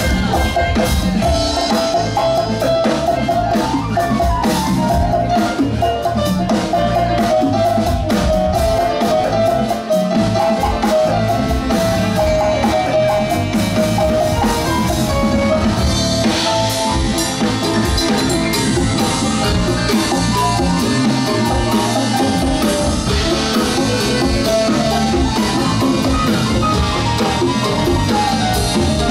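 Live funk band playing a steady groove, with drum kit, bass, congas, electric guitar, keyboards and saxophones, and a held, wavering lead melody line over it through the first half.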